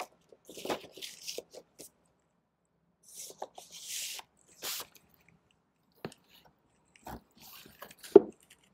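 Vinyl LP records being handled in their paper inner sleeves and cardboard jackets: several short bursts of paper rustling and sliding, a few light taps, and a louder knock near the end as the box set is handled.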